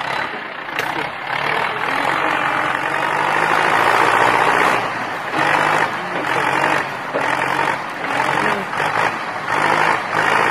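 Tractor diesel engine working hard in deep mud, its note surging and dipping repeatedly from about halfway through.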